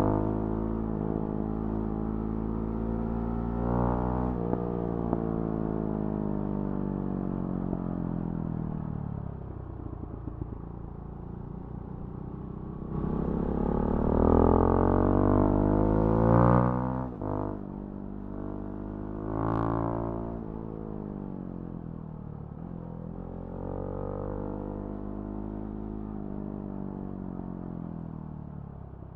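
Husqvarna Svartpilen 701's big single-cylinder engine running through a Remus NXT exhaust while riding. Its revs fall off at first, then climb hard about halfway through, break off sharply for a moment at a gear change, climb again briefly, and settle back and fall.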